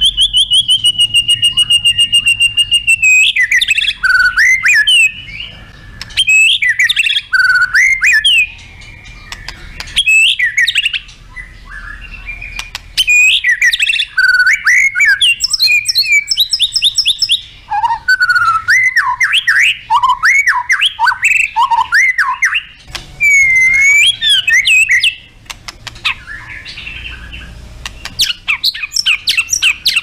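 White-rumped shama singing: a fast, rattling trill at first, then loud whistled notes that slide up and down, delivered in varied bursts separated by short pauses.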